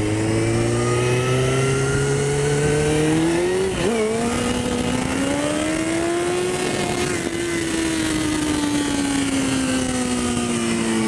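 Suzuki GSX-R1000's inline-four engine pulling under acceleration, its pitch rising, then dropping with a gear change about four seconds in. It climbs a little more, then eases off with a slowly falling pitch, over steady wind rush.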